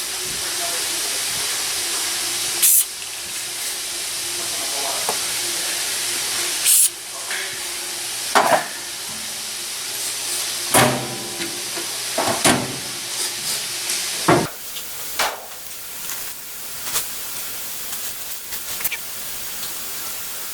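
Aerosol can of silicone spray hissing steadily, with a few short louder bursts, as it is sprayed into a stuck console button to loosen the dirt seizing it. The spraying stops about two-thirds of the way through, followed by scattered light clicks and knocks.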